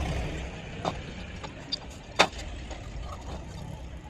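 A motor vehicle's engine rumbling low and fading away, with a few sharp knocks. The loudest knock comes about two seconds in.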